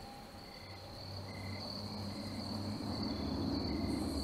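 Crickets chirping steadily in a night ambience, over a low hum that grows gradually louder.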